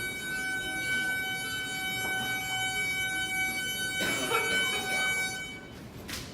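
A steady, high electronic tone held for several seconds, cutting off about five and a half seconds in, with faint voices under it near the end.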